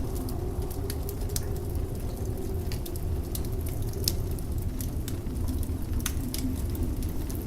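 Wood fire in a fireplace crackling, with many sharp, irregular pops and snaps, over a steady low rush of blizzard wind.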